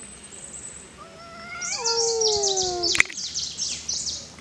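Domestic cat giving a drawn-out warning yowl in a standoff with another cat. The yowl rises, then slides down in pitch over about two seconds, with harsh high hissing noise alongside. It ends in a sharp click about three seconds in.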